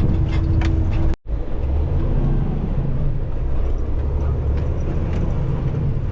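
Semi-truck engine and road noise heard from inside the cab while driving: a steady low rumble, cut by a brief dropout about a second in.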